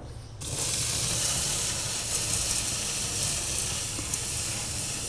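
Red-hot mild steel flat bar, just fusion-welded with an oxy-acetylene torch, sizzling as tap water runs over it and flashes to steam, with the water splashing into a stainless steel sink. The steady hiss starts suddenly about half a second in.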